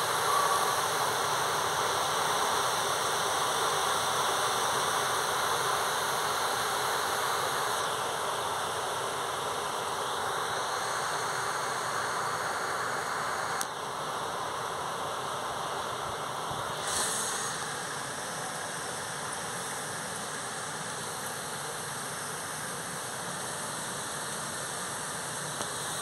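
Heavy rain falling, a steady even hiss that gets a little quieter in the second half.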